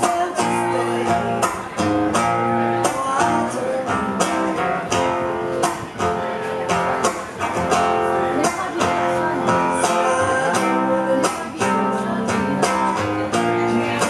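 Acoustic guitar played live, steady rhythmic strummed chords mixed with picked notes.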